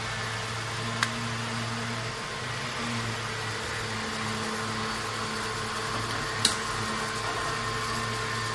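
Steady electrical hum and fan noise from a switched-on Cajon orbital welding power supply, with two short sharp clicks, one about a second in and one about two-thirds of the way through.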